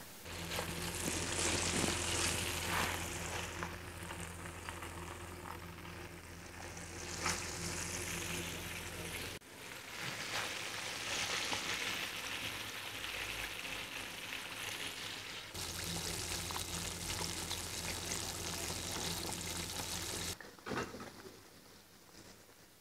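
Whole battered chicken deep-frying in hot oil in a cast-iron kazan: a dense, steady bubbling and crackling with a low hum beneath it. The sound breaks off abruptly about nine seconds in and again near the end, where it turns quieter and there is a single knock.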